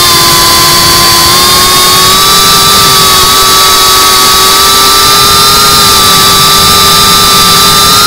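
FPV quadcopter's brushless motors whining at steady cruise throttle: a loud, high-pitched whine of several held tones that scarcely change pitch.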